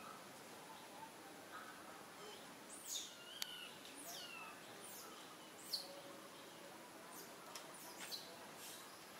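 A bird repeating short, high chirps that fall steeply in pitch, a run of them from about three seconds in and a few shorter ones near the end, over faint outdoor background noise.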